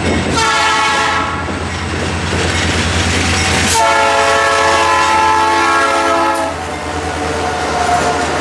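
Soo Line diesel freight locomotive sounding its air horn over the low rumble of its engine: a short blast near the start, then a long blast of about three seconds in the middle. A fainter, lower horn tone follows near the end as the locomotive draws close.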